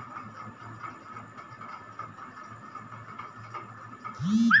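A steady low hum with a faint high steady tone. Near the end, a loud short call rises and then falls in pitch, like an animal's call.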